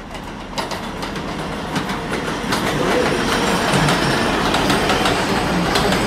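New York City Subway 7 train of R188 cars running into an elevated station, growing louder over the first few seconds as the cars pass close by, then holding steady, with the wheels clicking repeatedly over the rail joints.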